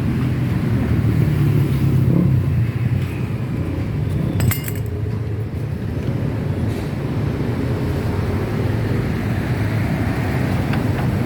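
Yamakoyo ZS1130G single-cylinder diesel engine running steadily with a fast, even firing beat, freshly started. A sharp click sounds about halfway through.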